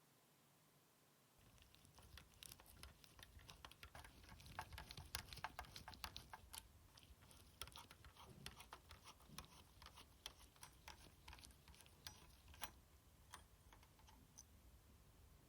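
Quiet, irregular clicks and taps of hands and small tools handling a PS4 Slim's parts as it is taken apart, starting about a second and a half in.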